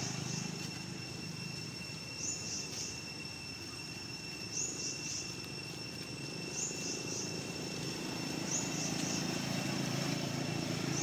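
High chirping calls, each a quick group of two or three falling notes, repeating about every two seconds over a steady high whine and a low rumble.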